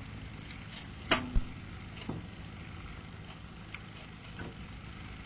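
Old film soundtrack noise: a steady low hum under hiss, with two sharp clicks a little over a second in and a fainter one about a second later.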